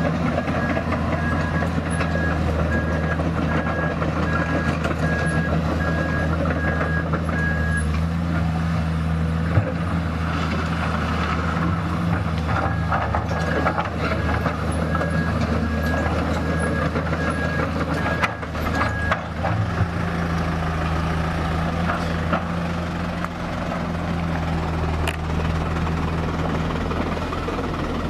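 Komatsu PC200 crawler excavator's diesel engine running steadily while the machine tracks along, with its travel alarm beeping in an even on-off rhythm for the first several seconds and again for about six seconds from the middle.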